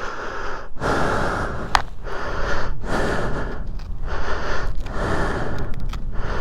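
A person breathing hard close to the microphone, one heavy breath about every second: a rider out of breath and knackered from the effort.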